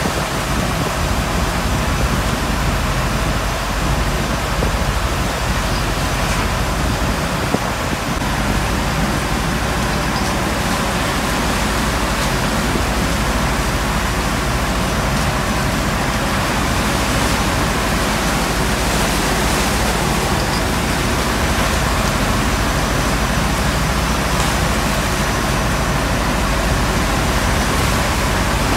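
Seawater from breaking waves washing across a tanker's steel deck: a loud, steady rush of water and spray, with a low steady hum underneath.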